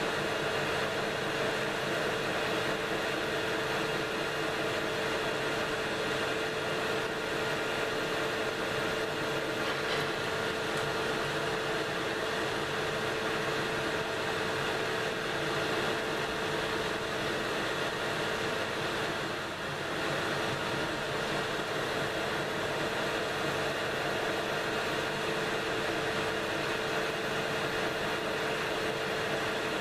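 Metal lathe running steadily, a constant machine hum with a steady whine, dipping briefly about two-thirds of the way through.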